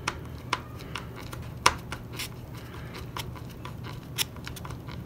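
Small Phillips screwdriver turning a tiny countersunk screw into the tail of an RC model airplane, the screw cutting its own thread: a string of light, irregular clicks and scratches, the loudest about one and a half seconds in.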